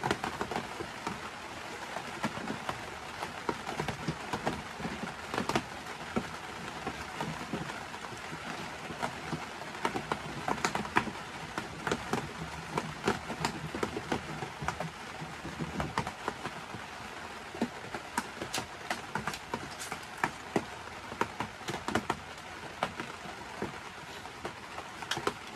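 Rain pattering on a surface: a steady hiss dotted with many irregular light ticks.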